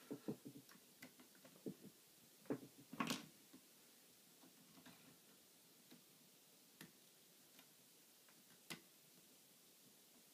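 Faint, scattered metallic clicks of a lock pick and tension wrench working the pins of a Yale Maximum Security euro cylinder, single-pin picking. A few louder knocks come in the first few seconds, then single ticks every second or so.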